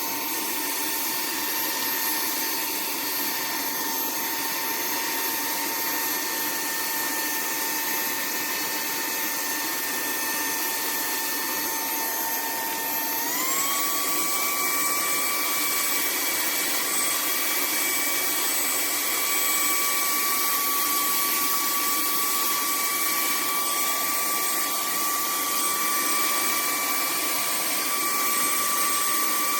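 Cordless handheld vacuum cleaner running steadily, a motor whine over rushing air. About thirteen seconds in, its pitch steps up quickly and then holds at the higher speed.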